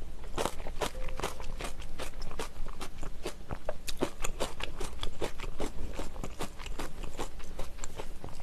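Close-miked chewing of a mouthful of rice soaked in spicy seafood ramyeon broth: an irregular run of wet mouth clicks and smacks, several a second.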